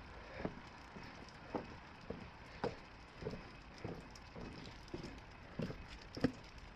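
Footsteps walking at a steady pace on a wet paved street, about two soft steps a second.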